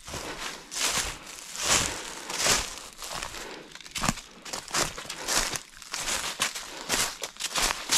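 Footsteps crunching and rustling through dry leaf litter on a forest floor, at a steady walking pace of roughly one step every three-quarters of a second.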